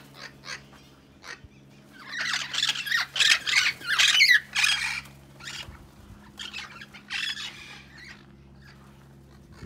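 A flock of Amazon parrots squawking: a burst of loud, harsh calls about two seconds in that lasts a few seconds, then scattered quieter calls.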